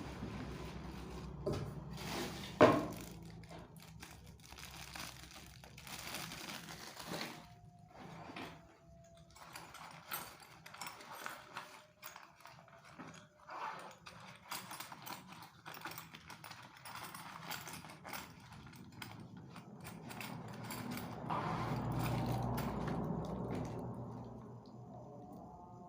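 Clicks, rattles and knocks of a new top-handle chainsaw and its parts being handled and fitted by hand, with one sharp click about three seconds in and a louder stretch of rustling and handling near the end. The engine is not running.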